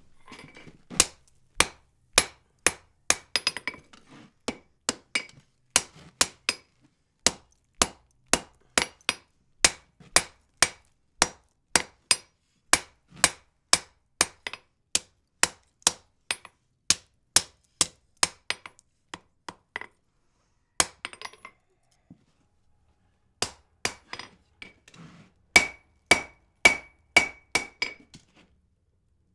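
Hammer blows forging the end of a hot wrought iron bar on an anvil, steady at about two a second with a couple of short pauses and a quicker run near the end. Many blows carry a short metallic ring.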